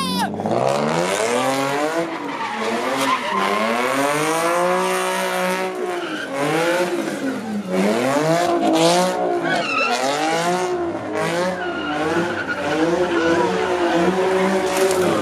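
A car's engine revving hard and its tires squealing as it spins donuts. The pitch swings up and down over and over as the throttle is worked.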